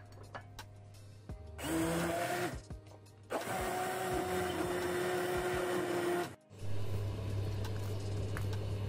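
Hand-held immersion blender motor whirring in two runs, a short one about a second and a half in and a longer steady one of about three seconds, as it purées okra, fish and fried onion in a plastic beaker. A steady low hum follows after it stops.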